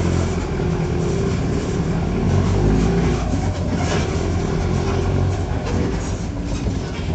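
Mercedes-Benz OF-1418 bus's six-cylinder diesel engine and exhaust running loud and steady, a low drone with some rattling.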